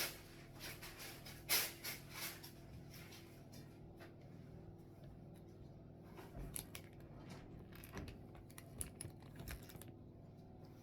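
Plastic Lego bricks being handled and snapped together: scattered short clicks and light rattles, the sharpest about one and a half seconds in, over a faint steady room hum.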